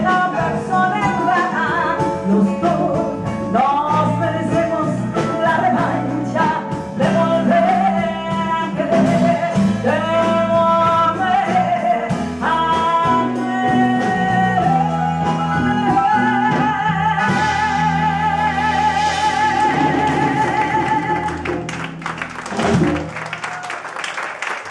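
Woman singing a bolero live with a small band of electric bass, keyboard and drums. Near the end she holds a long final note with vibrato, and the band closes the song on a sharp final accent.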